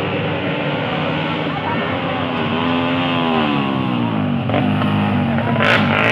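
Tuned racing motorcycle engines at high revs, several at once, their pitch dipping and climbing again as the bikes shift and pass by.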